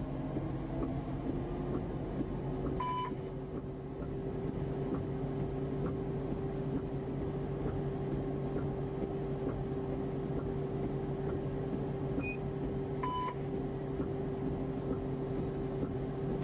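A steady droning hum that holds one pitch after a slight rise at the start, with short electronic beeps about 3 seconds in and again near the end.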